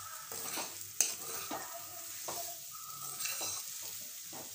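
Potato and pointed gourd pieces sizzling in masala in a kadhai while a metal spoon stirs and scrapes them against the pan, with irregular knocks of the spoon; the sharpest comes about a second in.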